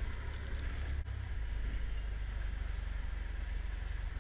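A crew boat's engine running steadily, a low rumble with a faint pulsing beat, over wind and water noise; about a second in the sound shifts abruptly and the engine's beat comes through more clearly.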